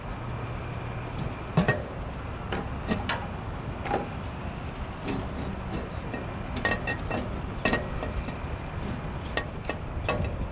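Scattered metal clinks and knocks as hand tools and valve parts are handled on a Godwin dewatering pump's non-return valve housing, over a steady low hum.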